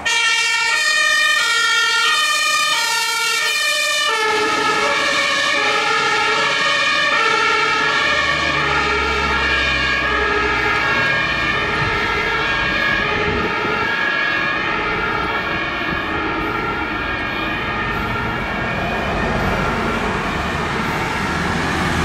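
German fire engine's two-tone compressed-air siren (Martinshorn) alternating between a high and a low note, about one change every half second to second. About four seconds in, the whole pattern drops in pitch as the truck passes and drives away. A low engine rumble comes in for a few seconds around the middle.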